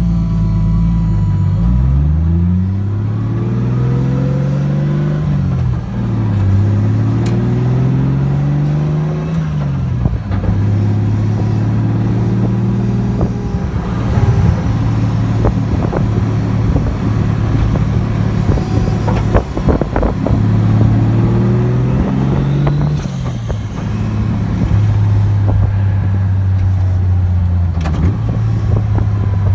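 Toyota 1JZ-GTE turbocharged straight-six, not yet tuned, heard from inside the drift car's cabin while it is driven. The engine rises and falls in pitch several times as it pulls up through the revs and eases off, then holds steadier, with scattered clicks and knocks around the middle.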